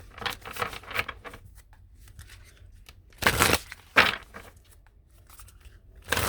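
A deck of oracle cards being shuffled and handled: soft rustling, with two louder swishes of the cards about three to four seconds in.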